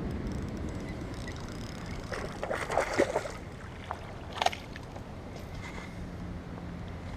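Steady wind rumble on the microphone, with a few short sloshing splashes of water around the middle as a hooked redfin perch is brought in.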